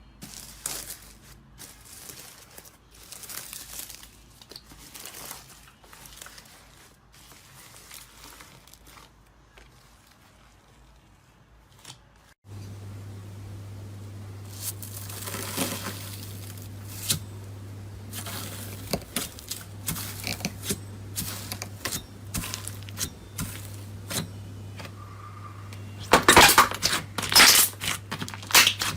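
Close-up ASMR crackling, crinkling and tearing sounds of a soft material being squeezed and pulled apart, in quick irregular clicks. About a third of the way in a steady low hum sets in under them, and near the end comes a louder run of crackles.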